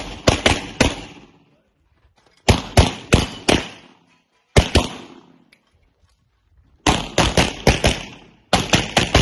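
Pistol fired in quick strings of about three to six shots each during an IPSC stage, with pauses of one to two seconds between strings. There are five strings, each shot sharp and followed by a short echo.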